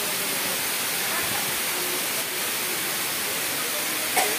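Waterfall pouring down a rock face into a pool: a steady, even rush of falling water. Faint voices of people nearby sit under it, and a brief sharp sound comes near the end.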